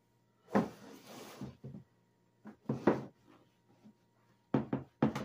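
Cloth wiping over a plastic storage drawer: a short stretch of rubbing, then a series of short hollow plastic knocks and clunks as the drawer is handled, several in quick succession near the end.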